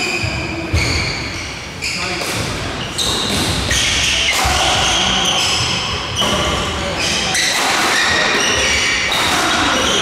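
Badminton rally on an indoor court: rackets hitting the shuttlecock in sharp smacks and court shoes squeaking on the wooden floor, over the chatter of voices echoing in a large hall.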